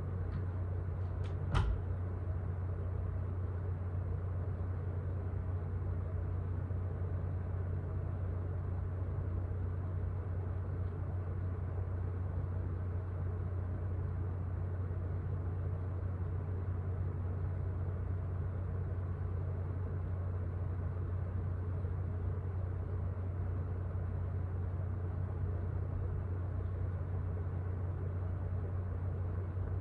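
A steady low hum fills an empty room. A door latches shut with one sharp click about a second and a half in.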